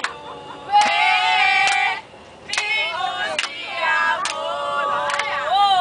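Several voices singing together, holding long notes that slide in pitch, over a sharp regular beat a little under a second apart.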